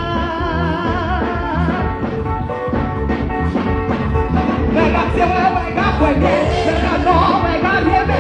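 Music with singing over a steady low beat; the sung melody grows louder about halfway through.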